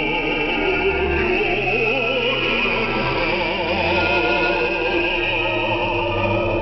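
North Korean revolutionary song with a singing voice in strong vibrato over instrumental accompaniment, received by shortwave radio, so the top end is cut off.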